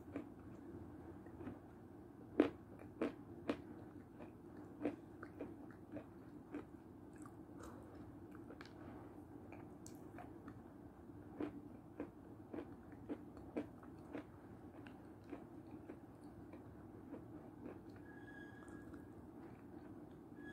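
Close-miked eating of milk soup from a plastic cup with a plastic spoon: faint chewing and irregular sharp clicks, over a low steady hum.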